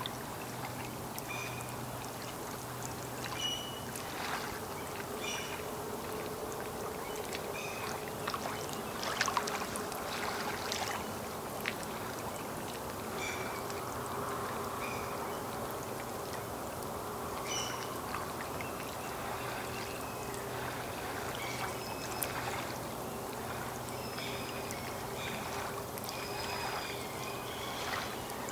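Small waves lapping and splashing at the lake's edge, with a cluster of sharper splashes about a third of the way in. Birds call in short high notes now and then over a faint steady low hum.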